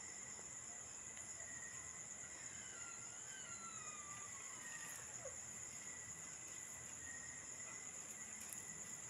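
Night-time chorus of crickets and other insects, a steady high-pitched trilling with a second steady lower tone. A faint wavering call slides down in pitch a few seconds in.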